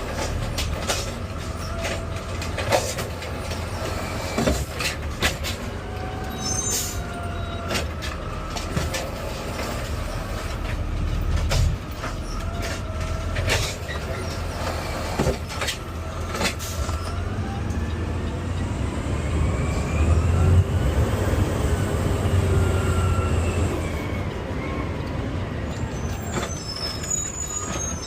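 Automated side-loader garbage truck running with its engine at a steady hum, with knocks and clanks in the first half as the arm picks up a can. In the second half a whine rises and then falls.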